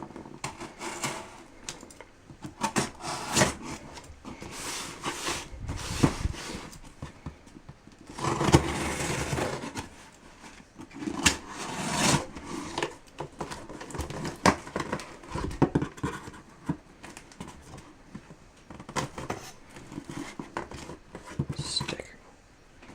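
A knife's retail packaging being opened and handled: irregular scrapes, clicks and rustling, with a longer stretch of rustling about eight seconds in.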